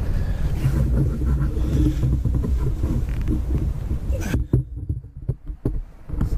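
Wind buffeting the microphone, a loud, low rumble. Near the end a few knocks and bumps come as the camera is handled and settled.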